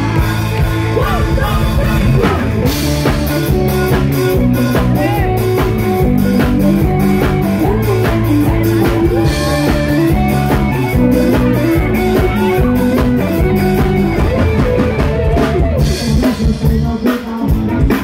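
A woman singing into a microphone with a live band: drum kit and electric guitar, loud through the PA speakers.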